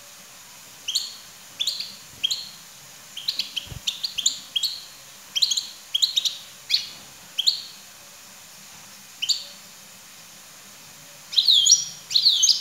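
European goldfinch giving short, sharp, twittering call notes in irregular clusters. A pause of a couple of seconds comes before a louder, denser burst near the end.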